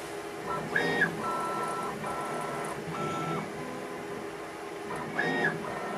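Tormach CNC mill's axis motors whining through a run of quick probe moves, each move a short steady tone that rises at the start and falls away at the end, several moves in a row over a steady machine hum. This is the touch-probing cycle that squares up the part origin, run at a fast probing feed.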